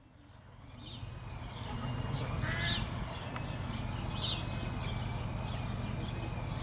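Outdoor ambience of a played-back video clip: a steady low rumble with birds chirping several times. It fades up over the first two seconds as the gain filter's volume keyframes raise the level.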